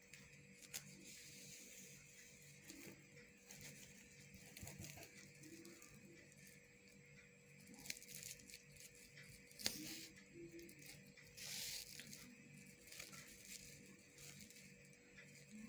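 Faint rustling and crinkling of stiff crinoline mesh and feathers being handled, with a few sharp clicks, the loudest a little after the middle, over a faint steady hum.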